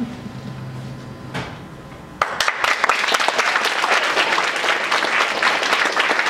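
A faint low note at the end of the music dies away. About two seconds in, an audience suddenly breaks into applause, with dense, steady clapping from many hands.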